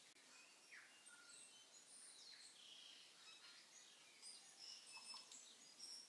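Faint sizzling of sliced onions frying in oil in a stainless steel Instant Pot insert as a wooden spoon stirs them: scattered small high crackles and pops, busier in the second half.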